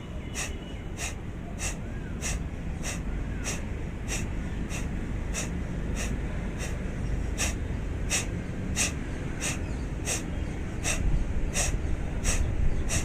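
A woman doing a breathing exercise: short, forceful exhalations in a steady rhythm, about three every two seconds. Wind rumbles on the microphone, louder near the end.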